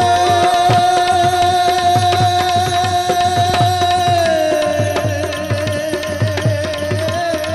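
Gujarati devotional folk music: one long melodic note held over a steady hand-drum beat. The note dips slightly in pitch a little past halfway and wavers toward the end.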